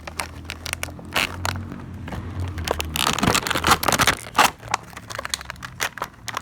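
Stiff plastic toy packaging crackling and scraping as it is handled and pulled open: an irregular run of sharp clicks and crackles, loudest about three to four and a half seconds in.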